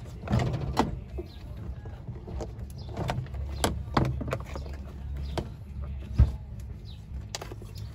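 Plastic interior door trim panel of a 1998–2002 Honda Accord coupe being lifted up and off the door: irregular clicks, knocks and scrapes of the trim against the door, over a low rumble. The loudest knock comes about six seconds in.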